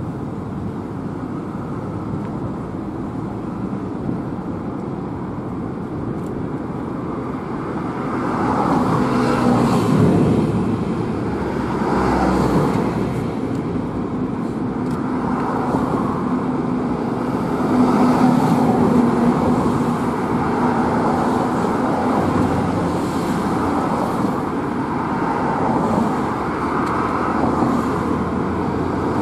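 Road traffic passing: a continuous hum of motor vehicles that swells and fades several times as vehicles go by.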